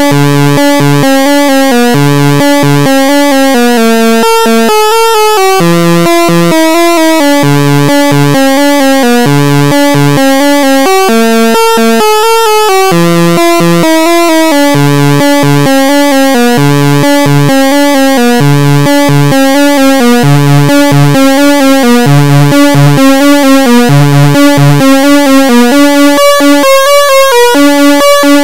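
Behringer Crave analog synthesizer playing a repeating sequenced pattern of notes over a recurring bass line, with a rhythmic pulse in the loudness that grows stronger in the last few seconds.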